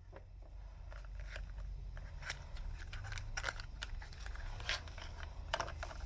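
Scattered light clicks and scrapes of a spanner and hand working on metal at the gearbox's reverse light switch, over a low steady rumble.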